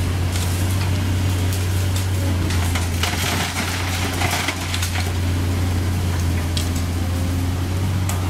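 Sumitomo SH200 excavator's diesel engine running at a steady drone, with chunks of broken asphalt clattering and crashing into the dump truck's bed as the bucket unloads, loudest about three to five seconds in.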